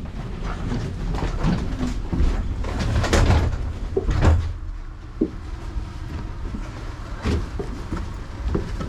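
Passenger train running as it approaches a station: a steady low rumble with irregular knocks and rattles, loudest about three to four and a half seconds in.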